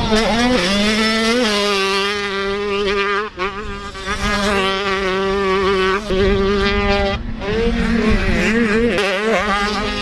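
Two-stroke 85 cc motocross bikes racing, engines held high in the revs with a steady buzzing pitch that rises and drops at times. The sound breaks off and changes abruptly a few times as the footage cuts from one bike to another.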